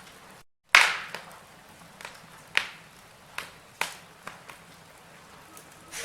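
Logs burning in a fireplace, crackling: sharp pops and snaps every second or so over a low hiss. The loudest pop comes right after a brief cut to dead silence, just under a second in.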